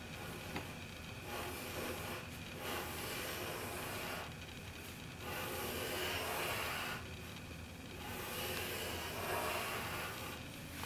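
Pencil sketching on paper: a scratchy hiss that comes in several stretches of one to two seconds, with short pauses between strokes.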